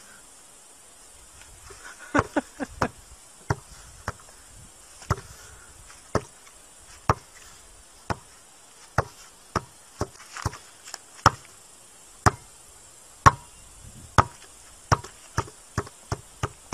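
A ball being bounced by hand: sharp knocks about once a second, quickening to about three a second near the end.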